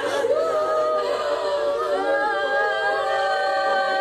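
A group of voices singing together without instruments, in long held notes.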